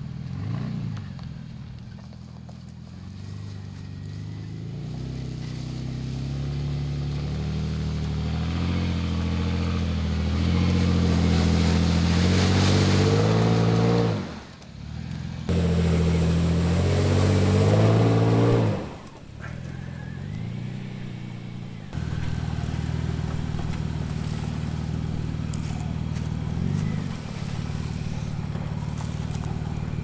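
Toyota FJ Cruiser's 4.0-litre V6 engine working at low speed as the truck crawls up a steep dirt rut, its note rising and growing louder as the throttle is fed. The sound breaks off abruptly twice midway, then settles to a steady, even run.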